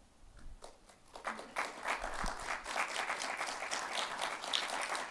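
Audience applauding in a hall: a few scattered claps about a second in, then steady clapping from the crowd.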